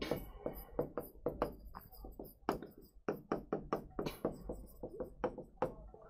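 Stylus tapping and clicking against an interactive display screen during handwriting: a quick, irregular run of light taps, about three or four a second.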